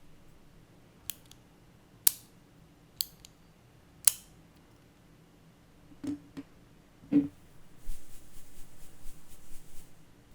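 Mechanical keyboard with clicky blue switches lubed with Krytox 205g0: single keys pressed one at a time about a second apart, two of them with a deeper thud, then a quick burst of typing near the end.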